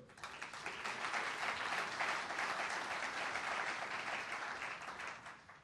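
Audience applauding, building over the first couple of seconds and fading out near the end.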